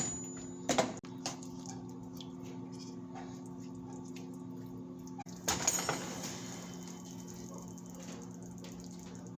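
Steady low hum with a few light knocks about a second in and a louder clatter with a brief ring a little past the middle, typical of cookware and utensils being handled.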